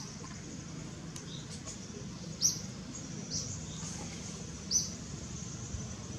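A bird calling repeatedly with short, high-pitched chirps, one every second or two, the loudest about two and a half seconds in, over a steady low background rumble.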